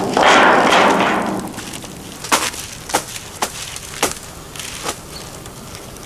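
Water running off a bundle of soaked willow rods as it is lifted out of a metal tub, fading away over the first second and a half. Then five sharp knocks, half a second to a second apart, as the upright bundle is bumped on the stone paving to line up the thick ends.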